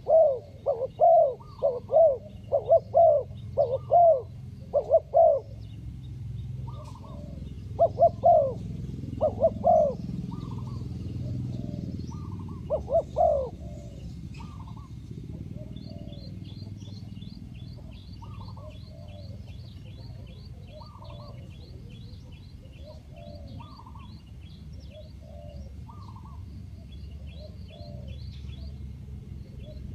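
Spotted dove cooing: a quick run of loud coos, about two a second, for the first five seconds, then slower, softer coos spaced a second or more apart. Over the second half runs a fast, faint, high chirping.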